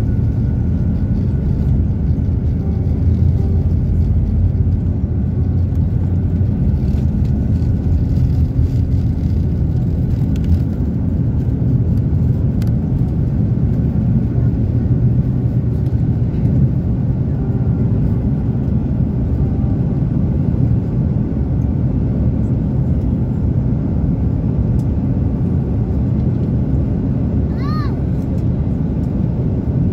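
Fiji Airways Airbus A330 airliner, a steady loud low rumble of engine and airflow noise that holds level throughout. A brief high-pitched tone sounds once near the end.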